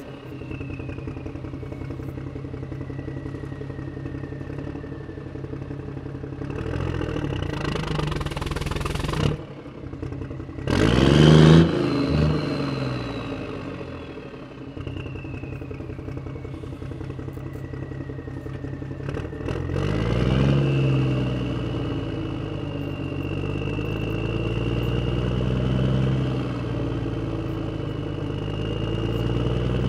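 A diesel tractor engine sound runs steadily and revs up about 20 seconds in, with a high whine that slowly falls and later rises in pitch. A loud clattering burst comes about 11 seconds in.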